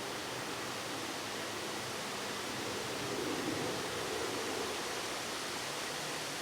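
Steady rushing outdoor noise with no distinct events, swelling and easing slightly.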